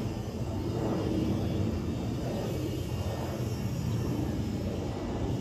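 Twin-engine jet airliner passing overhead: a steady, low rumble of its jet engines that swells and eases gently.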